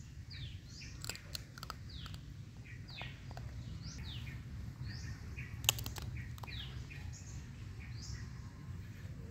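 Birds chirping, many short notes that slide downward, repeated throughout. A few sharp clicks come through, the loudest about halfway through, over a steady low rumble.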